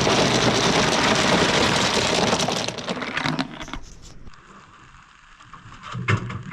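Ice cubes pouring and rattling into a chilly bin (cooler) for about three seconds, then fading to a few light knocks.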